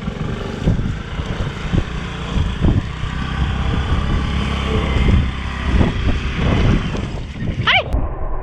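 Wind buffeting the microphone during a motorcycle ride on a rough dirt track, with the bike running underneath in an uneven rumble. Near the end a brief warbling sound slides down in pitch.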